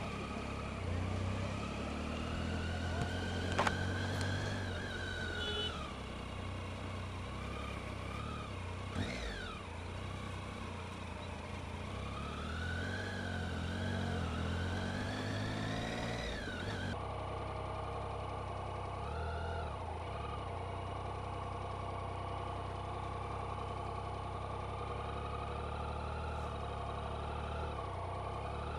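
Motorcycle engine heard from the rider's position, revs rising and falling as it rides slowly and changes speed, then running steadier after an abrupt cut about two-thirds of the way through.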